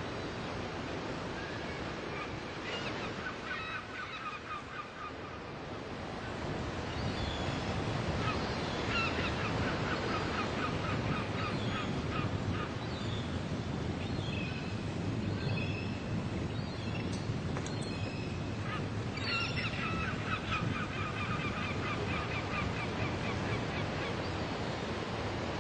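Birds calling in several bouts of rapid, repeated chattering notes over a steady rush of sea and wind, which grows louder about six seconds in.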